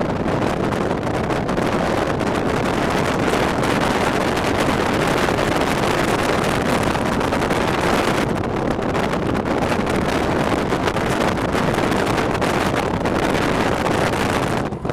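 Wind buffeting the microphone: a loud, steady rushing roar with no distinct events.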